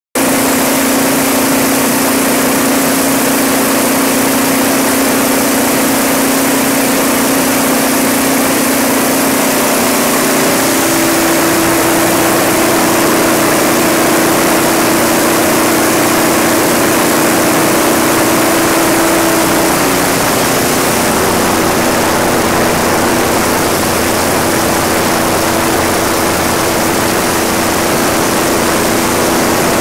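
Cummins VTA-28 turbocharged V12 diesel engine of a 600 kW standby generator set running steadily: a loud, even engine noise with a steady hum, whose tone steps up in pitch about ten seconds in.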